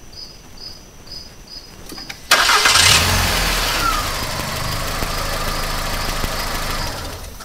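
VW Jetta 2.0 inline-four cranked on its replacement starter. It catches suddenly a couple of seconds in and settles into a steady idle. This is a hot restart to check that the starter no longer stays engaged after the engine fires.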